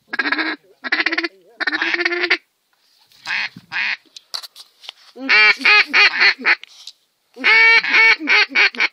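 Duck call blown in quacking sequences: three long, drawn quacks in the first two seconds, then, after a pause, two runs of about six to eight short, quick quacks, around five and seven and a half seconds in.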